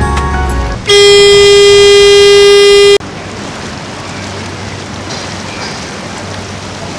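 Boat horn sounding one steady blast, about two seconds long, that starts about a second in and cuts off sharply. It is followed by steady rushing wind and water noise as the boat moves across the harbour.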